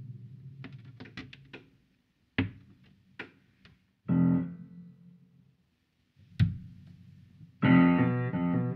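Sparse instrumental soundtrack music. A low note fades out, followed by scattered short sharp hits and one brief pitched note, with silent gaps between them. About three-quarters of the way through, full instrumental music comes in and carries on.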